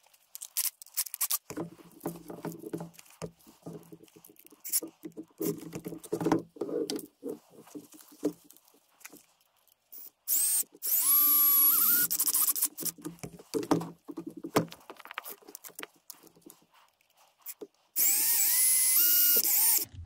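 Cordless drill driving self-tapping screws into PVC pipe. It runs for about two seconds twice, once about ten seconds in and again near the end, its motor whine rising as it spins up and then holding. Before that come scattered clicks and knocks of handling.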